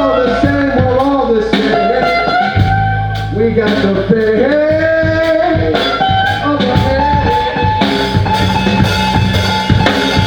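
A live band playing at full volume: electric and acoustic-electric guitars, bass and drum kit, with a lead line that slides between notes over steady drum hits.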